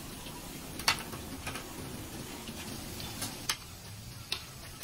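A slab of pork belly deep-frying in hot oil in a steel wok: a faint steady sizzle with sharp crackling pops at irregular moments, about five in all.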